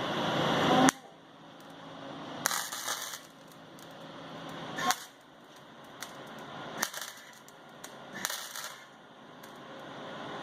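Welding arc crackling in several short bursts that stop abruptly, with pauses between them.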